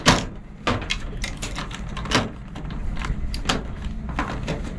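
Plastic Polly Pocket compact being folded up and pressed shut, with its small plastic pieces moved about: a run of irregular small plastic clicks and clacks.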